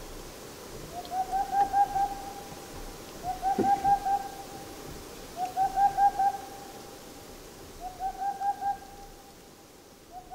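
Boreal (Tengmalm's) owl singing: a rapid run of about six to eight soft hoots on one pitch, lasting about a second, repeated about every two seconds, four times, with a fifth run beginning near the end.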